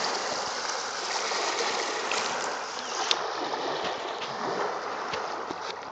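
Small lake waves washing and lapping over the stones of a rocky shore: a steady rushing wash with small splashes and clicks of water among the pebbles, and one sharper click about three seconds in.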